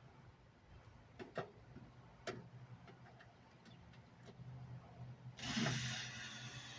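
Tools working on a microwave oven being torn down for scrap: two sharp metallic clicks and a few fainter ticks, then a loud rasping noise lasting about a second and a half near the end.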